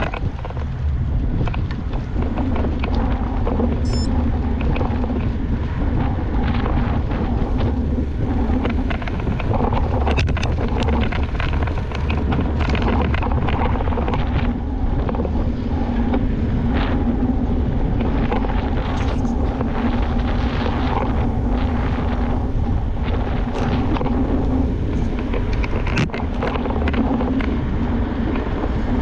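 Steady wind buffeting on a GoPro Hero 8 Black's microphone from riding a mountain bike at speed on asphalt. Scattered short clicks and rattles from the bike run through it.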